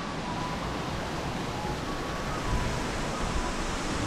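Gusty wind blowing across the microphone: a steady rushing noise with uneven low rumbling buffets.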